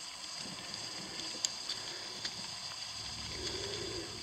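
Quiet outdoor field background with a faint steady high hiss, broken by a few small ticks about a second and a half and two seconds in.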